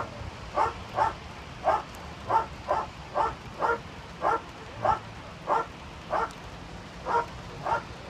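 Police dog barking over and over at a steady pace of about two barks a second, with a brief pause near the end.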